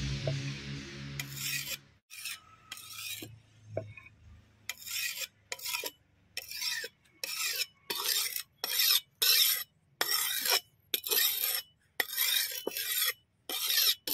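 A broad kitchen knife being sharpened on a whetstone: steel scraping across stone in a steady run of short strokes, about two a second, with brief pauses between them.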